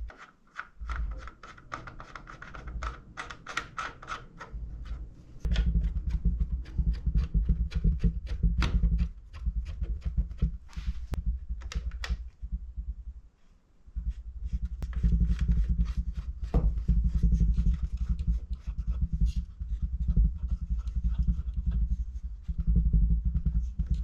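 Hands working on parts inside a computer case: many small clicks and scrapes of plastic and metal, over a low rumble of handling noise that drops out briefly about a second in and again about halfway through.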